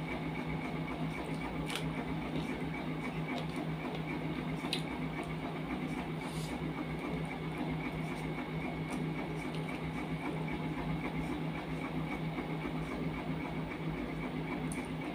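Steady mechanical hum throughout, with a few faint clicks and soft squishes of fingers working rice and curry on a steel plate.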